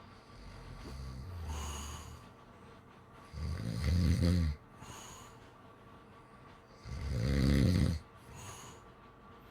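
Snoring in a slow rhythm: two loud snores, each about a second long and about three and a half seconds apart, with softer breaths between them.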